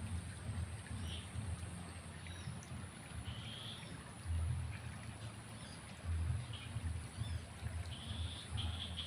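Flowing water making a steady wash, with short bird chirps now and then and several low rumbling bumps on the microphone.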